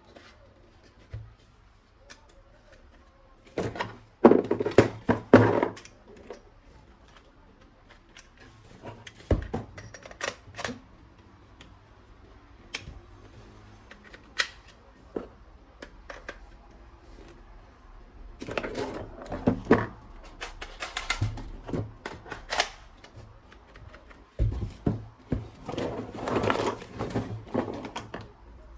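Plastic toy guns being handled: clicking and rattling in several busy spells, with scattered single clicks between them.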